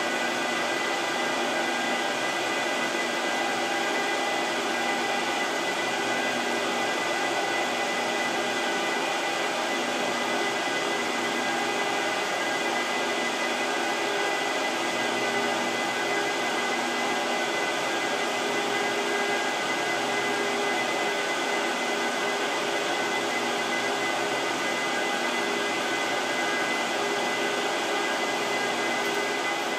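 Apple Xserve RAID and 2008 Xserve rack servers running, their cooling fans making a loud, steady whir with several steady tones in it, the clearest a high whine.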